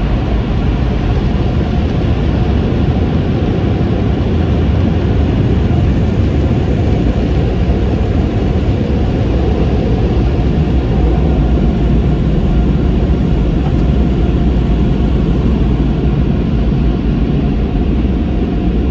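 Steady low rumble of a car rolling slowly and idling, heard from inside the cabin.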